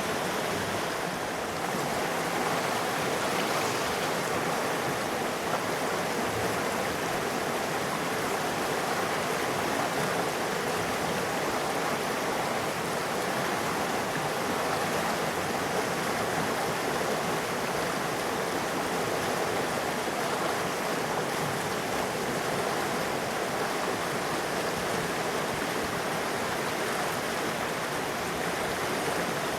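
River water flowing over rocks, a steady rushing babble with no pauses.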